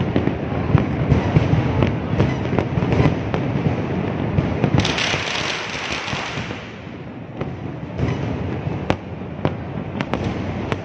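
Fireworks display: aerial shells bursting in a continuous rumble of bangs and pops. A spell of hissing comes about halfway through, and the bangs ease briefly just after it.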